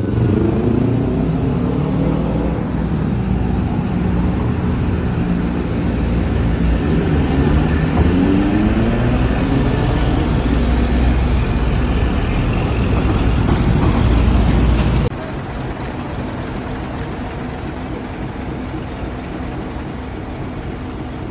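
An engine runs and revs, its pitch rising and falling over a heavy low rumble. About fifteen seconds in, the sound drops suddenly to a quieter, steady hum.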